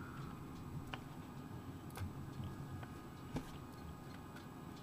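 Computer mouse clicking a few times, single sharp clicks about a second apart, the loudest about three and a half seconds in, over a faint low room hum.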